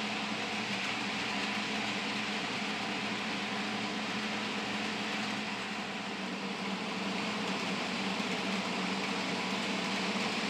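HO scale model freight train led by a Life-Like Proto 1000 NW-2 diesel locomotive running on its track: a steady whirring hum from the locomotive's motor and the rolling wheels, easing slightly about two-thirds of the way through.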